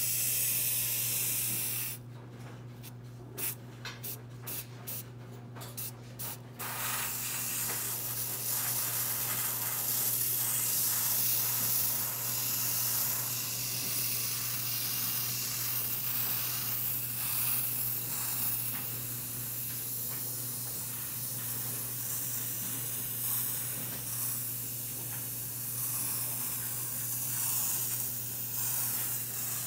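Aerosol can of silver spray paint spraying in a hiss. One burst lasts about two seconds, a run of short spurts follows, and from about six seconds in the hiss runs almost without a break.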